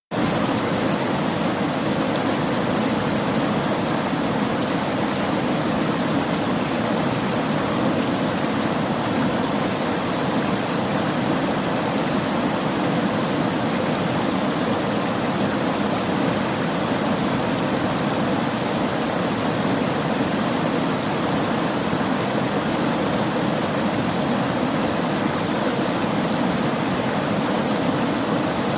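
River water flowing over rocks: a steady, unbroken rush.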